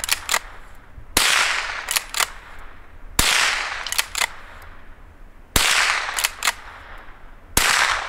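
Blaser R93 straight-pull .22 rifle fired four times, about two seconds apart. After each shot the bolt is pulled back and pushed forward with two quick metallic clicks, ejecting the case and chambering the next round.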